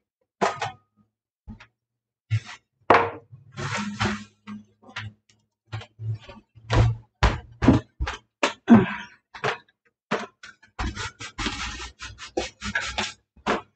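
Repeated knocks, thunks and clatter of household items and a dining chair being handled around a wooden kitchen table. Near the end come short squirts from a trigger spray bottle of cleaner.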